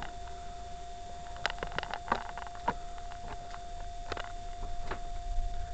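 Handling noise from a small camera being picked up and moved: irregular clicks and knocks of fingers and casing, about eight scattered over the few seconds. Under them a steady thin electrical whine and a low rumble.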